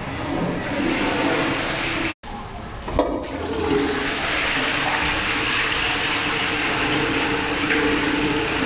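Toilet flushing: loud, steady rushing water, with a sharp click about three seconds in, after which the rush carries on with a steady humming tone in it.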